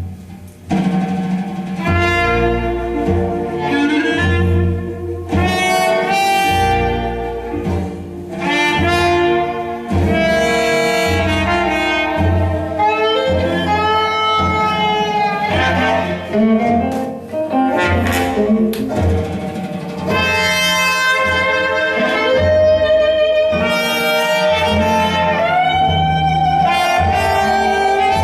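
Jazz-blues band playing, with saxophone and brass phrases, some notes bent, over a double bass line.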